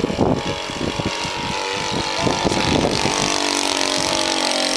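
Engine of the homemade aircraft 'Ptitsa' running hard. It is uneven for the first few seconds, then settles to a steady pitch about three seconds in. The crew complains that it won't hold even, full revs.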